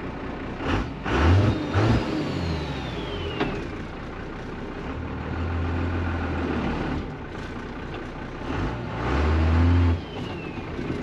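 12-valve Cummins turbo-diesel in a Dodge chassis, heard from inside the cab, running and revving up three times while a clutch that had stuck to the flywheel from sitting is broken free. A thin falling turbo whistle follows the first and the last rise.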